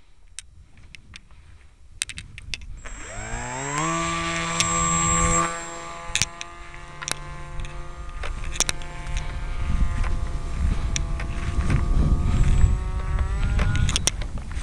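Brushless electric motor and propeller of a radio-controlled flying wing spinning up about three seconds in to a high, steady whine. The pitch dips slightly a couple of seconds later, rises a little near the end, and then cuts off. Low rumbling noise and scattered clicks run under it.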